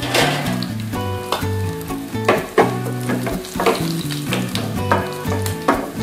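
Cumin seeds and whole round red chillies sizzling and crackling in hot oil in a steel frying pan as a tadka is tempered, with sharp crackles every second or so. Background music with steady notes plays over it.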